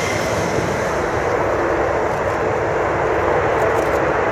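Polish Air Force F-16C Block 52+ jet fighter's Pratt & Whitney F100 turbofan running at takeoff power as it accelerates down the runway: a loud, steady rumble and hiss whose high end fades as the jet pulls away.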